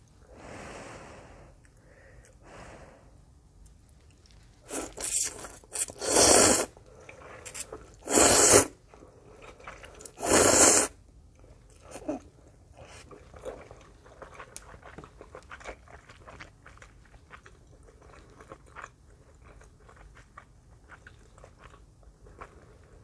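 Loud, close-miked slurping of spicy soup ramen noodles: a quick run of slurps about five seconds in, then two more single slurps a couple of seconds apart, each under a second long. Between and after them, wet chewing with many small clicks, and two soft breathy puffs near the start.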